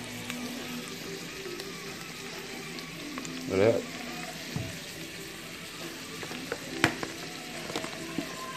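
Boiled red potatoes sizzling softly in a stainless steel pot on low heat, a steady hiss. About three and a half seconds in there is a short warbling squeak, and there are sharp clicks at about seven seconds and near the end as paprika is shaken on.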